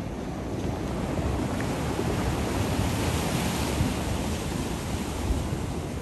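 Black Sea surf breaking and washing over a rocky, rubble-strewn shore, swelling in the middle and easing off, with wind buffeting the microphone.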